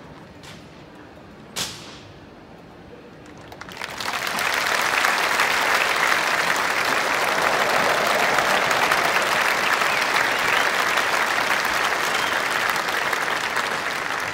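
Large stadium audience applauding, starting about four seconds in and holding steady. Before it come a few sharp clacks, the loudest about a second and a half in.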